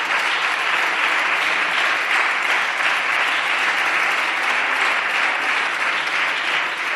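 Many parliamentary deputies applauding, a steady dense clapping throughout.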